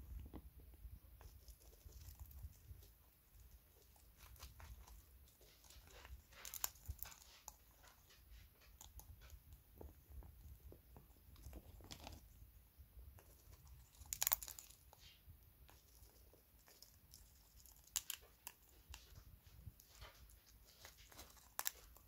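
African grey parrot cracking sunflower seed husks with its beak: faint, irregular crunching and clicking, with a few sharper, louder cracks scattered through.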